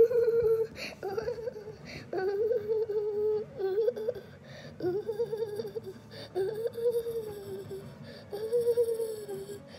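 A person humming a slow wordless tune: a string of held notes, each about a second long with short breaks between. A sharp knock right at the start.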